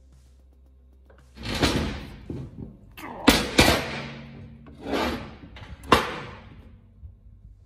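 Heavy bench vise being handled on a steel table top: a scrape, then several loud metal-on-metal clunks as it is tipped over and set down. The sharpest knocks come about three and six seconds in.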